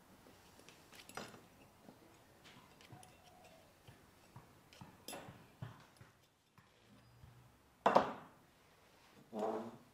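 Small metal parts being handled and fitted on a workbench: scattered light clicks and taps of thin metal legs against a metal ring. About eight seconds in comes a sharper metal knock, followed by a short ringing note.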